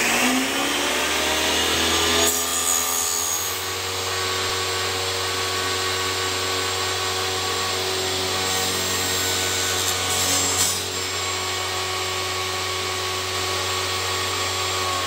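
A woodworking power tool's motor runs steadily while cutting wood, having just spun up; the cutting sound changes about two seconds in and again near eleven seconds.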